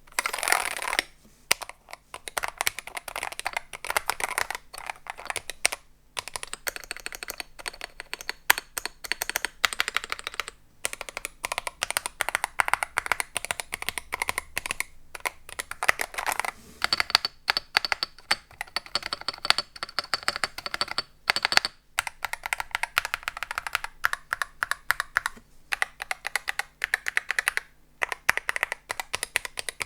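Typing on a MonsGeek M1 V3 aluminium-case keyboard with Hall effect magnetic switches, fully assembled with its internal dampening layers: fast, continuous key clacks with a few brief pauses. A faint high steady tone comes in twice under the typing.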